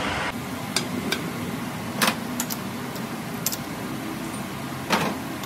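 Metal lathe holding a cast piston blank in its four-jaw chuck. A hiss cuts off just after the start as the spinning chuck stops. Then come scattered light metallic clicks and knocks from hand tools and fittings on the lathe over a steady low hum, with two louder knocks about two seconds in and near the end.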